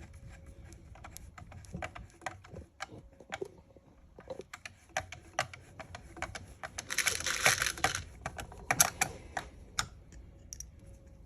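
Irregular small sharp clicks and taps of 3D-printed plastic parts and small screws being handled and fitted, with a denser scraping stretch lasting about a second, about seven seconds in.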